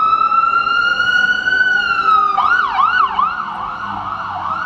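Ambulance siren passing close by, loud: a long slow wail that rises and then falls away, switching about halfway through to a fast yelp of roughly two to three sweeps a second.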